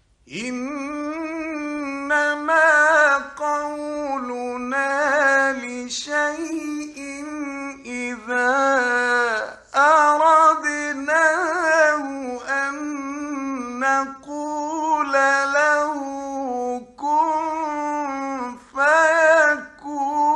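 A male Quran reciter chanting in a melodic, ornamented style: one voice holding long notes with wavering runs, broken by short pauses for breath.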